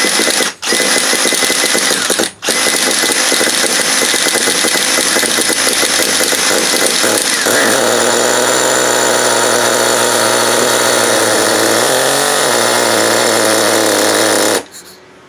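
Makita cordless drill spinning over a freshly rebuilt HPI Nitro Star G3.0 .18 nitro engine to start it for the first time, with two short stops in the first couple of seconds and then continuous cranking. The sound cuts off suddenly near the end when the drill stops, and the engine does not keep running on its own.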